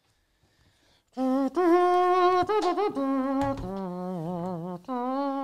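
About a second of near silence, then a voice humming a slow melody in long held notes with vibrato.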